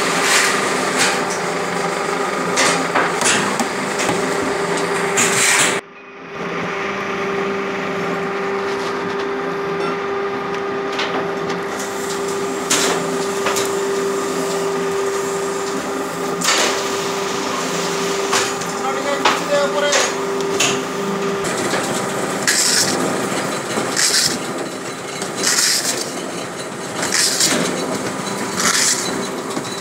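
Industrial plant machinery with belt conveyors, rollers and chutes running steadily: a constant machine hum with irregular knocks and rattles throughout. The sound breaks off briefly at about six seconds, then resumes.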